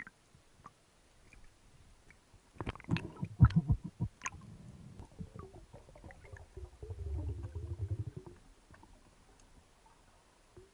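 Muffled underwater noise on a diver's camera: a quick run of knocks and clicks about three seconds in, then a low gurgling rumble for about two seconds.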